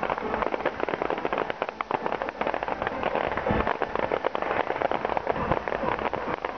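Fireworks crackling: a dense, rapid crackle from bursts of red crackling stars, with a deeper thud about three and a half seconds in.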